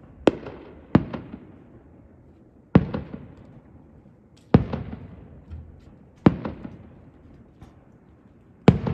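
Aerial firework shells bursting overhead: six sharp booms spaced about one to two and a half seconds apart, each trailing off in a rolling echo.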